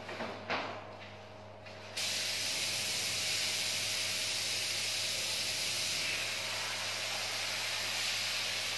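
Compressed-air gravity-feed paint spray gun spraying paint: quiet with two short puffs in the first two seconds, then the trigger is held and a loud, steady spray hiss runs on.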